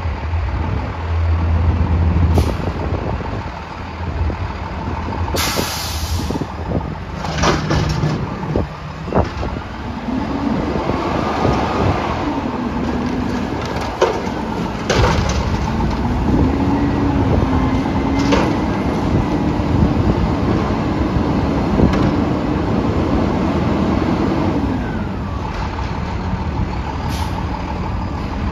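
Front-loader garbage truck lifting a dumpster over its cab and emptying it: the diesel engine revs rise and fall in long sweeps as the hydraulic arms work. A short air hiss comes about six seconds in, and there are several sharp bangs from the steel container and lift arms.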